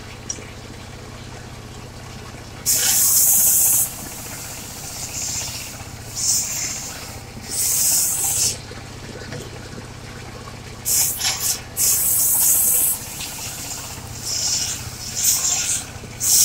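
Engine of a mobile circular sawmill running steadily, with about eight short hisses, each up to a second long, coming at irregular intervals over it.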